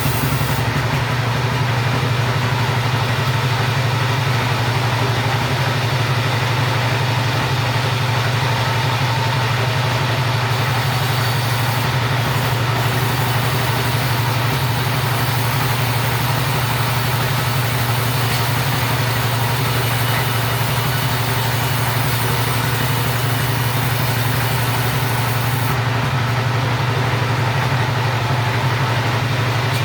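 Chainsaw engine running at a steady speed without letting up, as in a long cut through timber.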